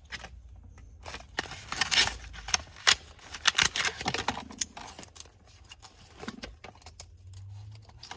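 Close hand handling of a small metal pry multi-tool: a busy run of clicks, taps and scraping rustles in the first half, then scattered single clicks.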